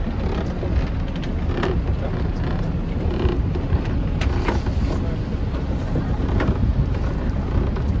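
Open boat's motor running steadily under way, with wind buffeting the microphone and water rushing past the hull.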